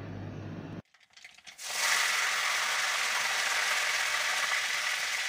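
Fresh curry leaves frying in hot oil in a kadai. A few crackles about a second and a half in, then a steady sizzle.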